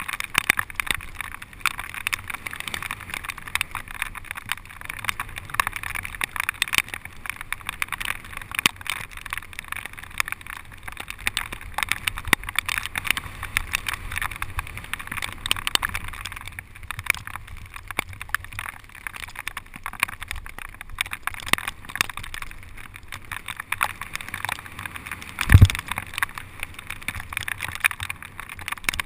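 Bicycle ride on rain-soaked pavement: a steady hiss of tyres on the wet road, with many small crackles and taps. Near the end comes a single loud low thump.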